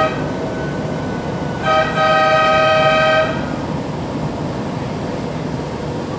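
ČKD Tatra RT8D5M light-rail car running with a steady rumble. A train horn gives a brief toot at the start, then sounds again about two seconds in and holds for about a second and a half.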